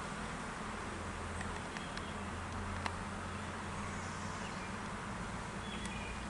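Steady outdoor background hiss over a low hum, with a single sharp click about three seconds in and a couple of brief faint high chirps near the end.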